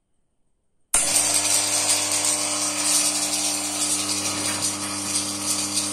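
Background music with shaker-like percussion starts abruptly about a second in, after near silence, and carries on steadily.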